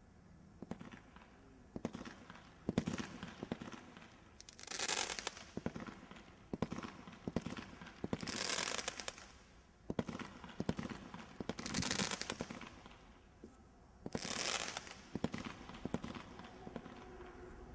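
Hitman 16-shot Cat 2 combination Roman candle barrage firing: a loud hissing rush about every three to four seconds as each shot goes up, with many sharp cracks and pops between them.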